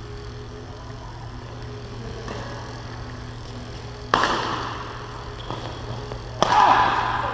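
Badminton rally in an echoing sports hall: a sharp racket strike on the shuttlecock about four seconds in, then a louder overhead smash about two seconds later, over a steady low hum.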